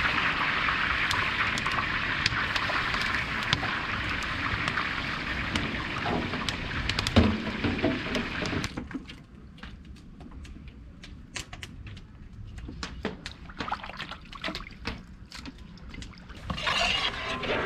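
Large cauldron of water at a rolling boil over a wood fire, a steady hiss with crackles, as rice is tipped in. About nine seconds in the hiss stops, giving way to quieter scattered clicks and light splashing of meat being washed by hand in a tub of water.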